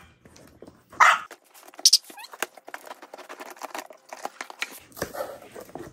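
A small dog gives one short, sharp bark about a second in. Then scissor blades cut along the packing tape of a cardboard box, a run of quick small clicks and scrapes.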